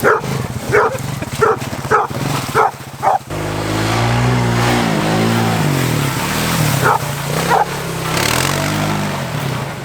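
A dog barks repeatedly, about six quick barks in the first three seconds and two more later. Underneath, a small engine runs steadily and then rises and falls in pitch as it is revved or driven.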